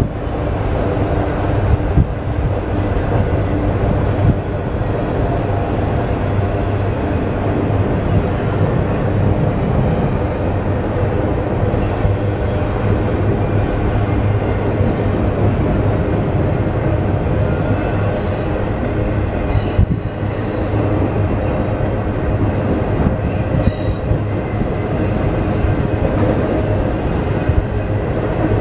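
Freight train cars rolling steadily across a steel girder bridge: a continuous rumble of wheels and car bodies, with several short high-pitched wheel squeals in the second half.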